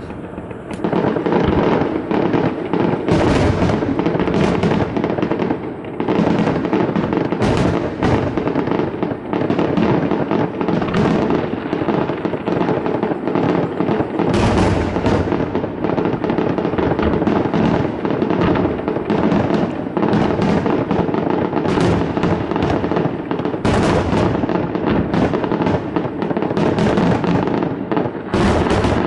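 Fireworks display: a continuous barrage of shell bursts and crackling, with heavier bangs standing out every few seconds.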